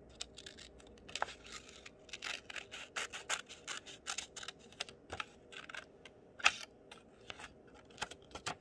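Blue-handled scissors snipping through a sheet of green paper: a run of short, irregular snips, one louder about two-thirds of the way through.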